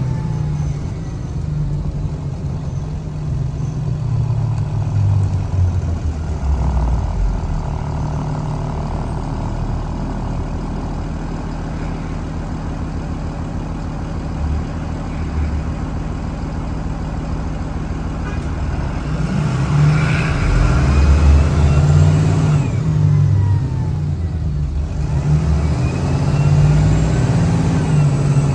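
2013 Blue Bird All American school bus engine running and pulling, with engine speed rising and falling. It gets louder for a stretch about two-thirds of the way through, with faint whines gliding up and down in pitch.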